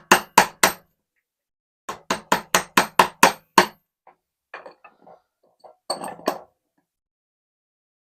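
A wood chisel struck repeatedly to chop out a recess in a hardwood board: a run of four quick strikes, then about eight more at around four a second, each with a slight metallic ring. After them come quieter irregular scrapes and light taps as the chisel pares out the waste.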